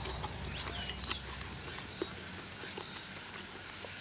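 Soft chewing and small mouth clicks of someone eating, with an insect chirping in short high-pitched pulses about once a second behind it.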